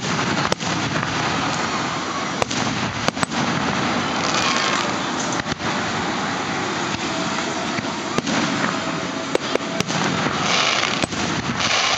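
Aerial fireworks shells bursting at a distance: a dozen or so sharp bangs at uneven intervals over a steady rush of background noise, with brighter hissing stretches around the middle and near the end.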